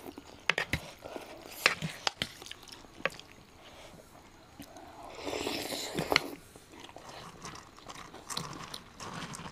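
Close-miked eating of aloo thukpa noodles: slurping and chewing, with scattered sharp clicks and a longer slurp about five seconds in.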